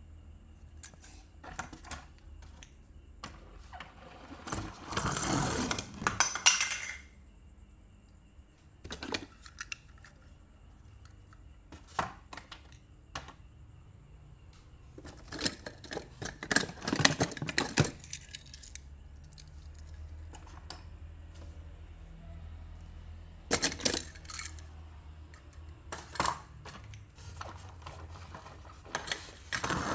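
Die-cast Disney Pixar Cars toy cars clinking and clattering as they are handled, rummaged from a cardboard box and set down: scattered clicks with a few short spells of clatter.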